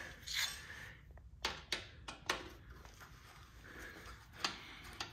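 A handful of faint, sharp clicks and taps of small parts being handled as a bolt is started by hand into a motorcycle's plastic side panel.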